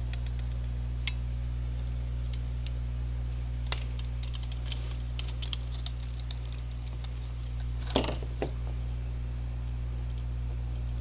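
Scattered small clicks and plastic handling noises as a smoke detector's battery is reconnected, with a louder pair of clicks about eight seconds in, over a steady low hum. The alarm horn stays silent.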